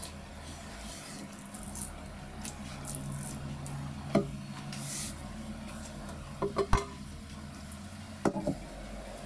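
Long kitchen knife slicing through skin-on splendid alfonsino (kinmedai) fillets on a wooden cutting board with soft scraping strokes. This is followed by a few sharp knocks and a clatter as the knife and a stainless steel bowl are handled and set down on the board.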